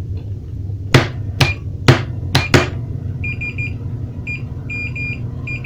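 A Siemens magnetic contactor clacks five times in quick succession as the start button is worked, over a steady low hum. About halfway through, a Fluke multimeter's continuity beeper across the auxiliary contact starts sounding in broken, stuttering beeps. The contact is closing but not cleanly, and the electrician puts this down to a dirty auxiliary contact.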